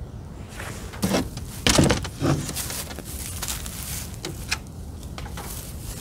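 Knocks and scrapes of equipment being handled at a pickup's tailgate while a diesel heater box is set up: a few sharp knocks in the first half, the loudest about two seconds in, then quieter rustling and handling.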